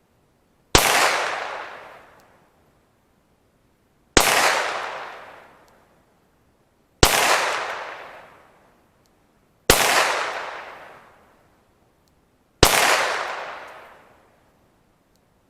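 Five slow, evenly paced shots from a Glock 19 9mm pistol firing 115-grain full metal jacket rounds, about three seconds apart. Each crack trails off in a long echo.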